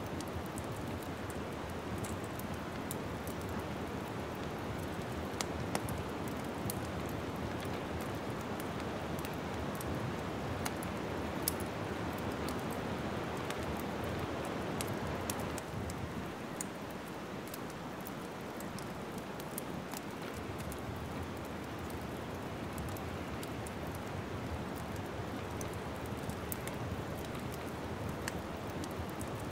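Wood fire crackling steadily over a soft rushing hiss, with frequent small snaps and a few sharper pops.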